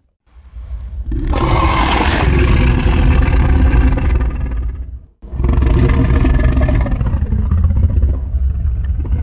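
Two long monster roars, each a synthetic Godzilla roar mixed from Godzilla film roars and stock dinosaur roars. Each has a deep rumble under a harsh, layered upper tone. The first lasts about five seconds and the second follows after a brief break, trailing off near the end.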